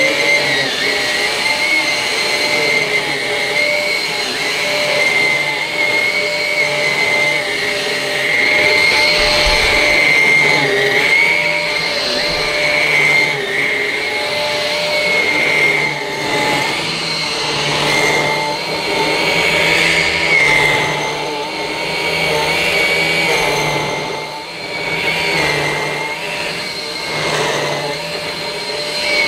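Numatic Quick cordless bagged vacuum cleaner running on its low setting, its motorised floor head pushed back and forth over a plush Saxony carpet with the suction control closed. A steady high whine that rises and falls slightly in level with the strokes.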